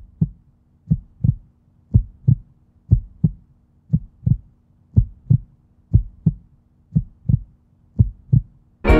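Heartbeat sound effect played for the stage scene: steady lub-dub double thumps, about one beat a second.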